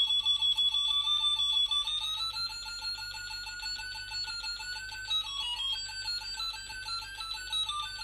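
Small speaker driven by an Arduino light-sensor synth, giving a buzzy electronic tone. The pitch slides upward about two seconds in, then jumps up and down in steps as a hand shades the photocell.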